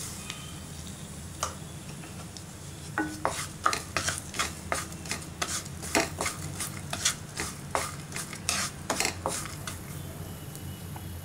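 A wooden spatula scraping and knocking against a nonstick pan as it stirs cashews and sugar in sizzling butter, caramelizing the nuts. The stirring starts about three seconds in as a quick run of clicks and scrapes and eases off near the end.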